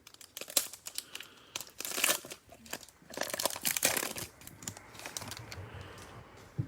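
Cellophane wrapper of a Prizm Baseball cello pack crinkling and crackling as it is handled and opened, in irregular rustling bursts that die down to a faint rustle in the last couple of seconds.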